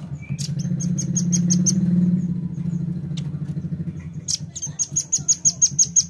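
Velvet-fronted nuthatch (red-billed nuthatch) calling: two runs of fast, high-pitched chips at about ten a second, one in the first second or so and one from past the middle to the end. A low, fast rattling hum lies underneath and is loudest in the first half.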